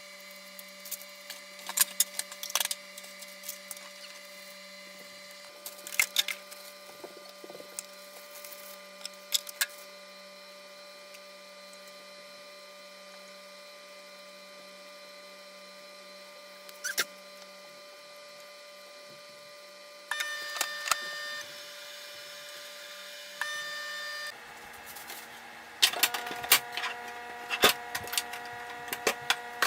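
Scattered knocks and clatter of kitchen things being handled over a steady electrical hum. A second, higher hum switches on for about four seconds about twenty seconds in, and there is a busier run of knocks near the end.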